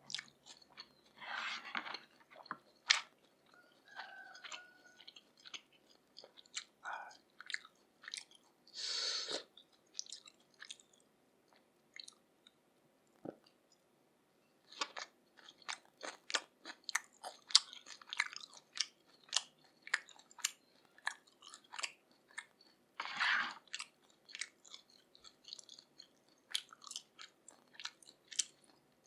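Close-miked chewing of grilled pork and lettuce: many wet mouth clicks and smacks, with a few louder crunchy bites about two, nine and twenty-three seconds in.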